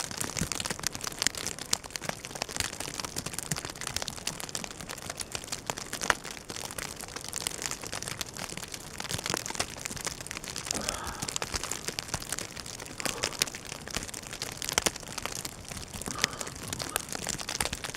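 Wind-driven snow in a blizzard pelting the microphone and clothing: a steady, dense, irregular crackling and crinkling.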